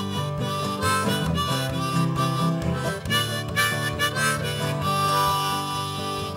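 Harmonica playing a melody over guitar backing: an instrumental break between the sung verses of a country-blues song.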